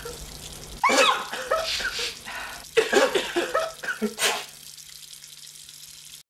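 A person coughing and sneezing in a few short, loud bouts about a second and a half apart. The last is a single sharp burst, and it goes quiet after it.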